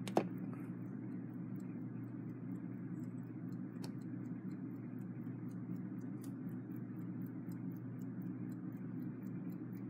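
Westclox Big Ben Chime Alarm movement ticking, its balance wheel and escapement beating in an even, rapid run of clicks over a steady low hum, with one louder click at the start. The movement is unoiled and its balance motion is weak; the repairer suspects a beat problem with the hairspring.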